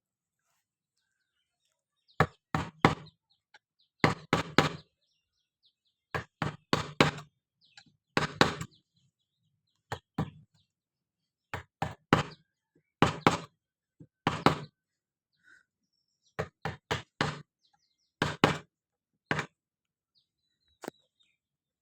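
Hammering on wood: sharp knocking blows in quick groups of two to four, repeated every second or two.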